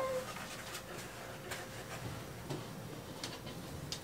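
Faint, scattered clicks and taps, a few over several seconds, as a light bulb is handled and screwed into a ceiling fitting.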